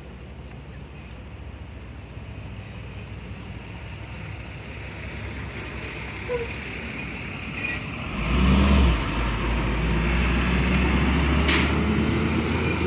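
A large engine running. It grows steadily louder, and from about eight seconds in it settles into a loud, steady, low drone.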